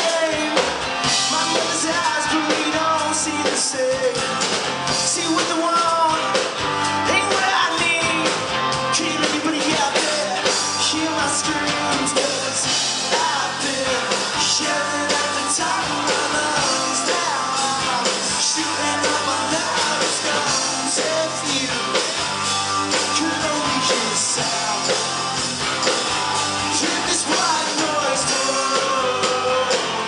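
Live rock band playing loudly, electric guitar to the fore with a male voice singing.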